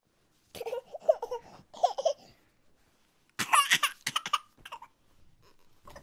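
Laughter in two short bursts, about half a second in and again at about three and a half seconds, the second higher-pitched.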